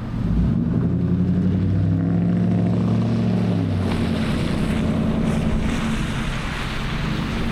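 Vehicle engine accelerating, its pitch rising for about three and a half seconds and then dropping away, over a steady hiss of rain and wet road noise that grows stronger in the second half.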